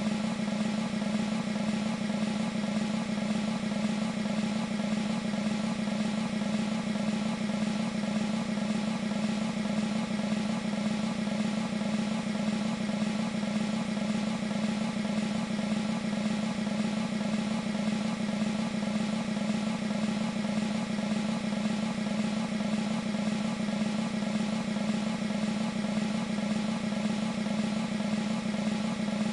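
Sampled military snare drums playing a continuous roll, several drums layered, from an E-mu Proteus 2 sound module; the strokes blur into one steady, even rattle with no breaks.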